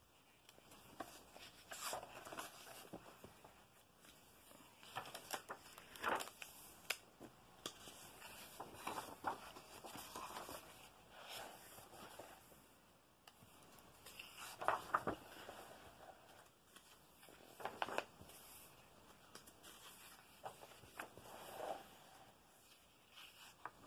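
Pages of a paperback colouring book being turned one after another: a soft paper swish and rustle every few seconds as each sheet is lifted and laid flat.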